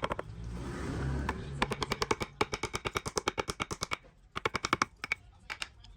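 Rapid train of sharp knocks, about eight a second, in bursts with a short break about four seconds in, typical of a tool striking wood.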